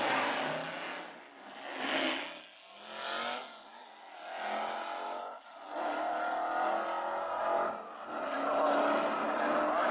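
Two classic V8 muscle cars launching off the drag strip's starting line and accelerating hard down the track at full throttle. The engine sound swells and dips several times as they shift up through the gears.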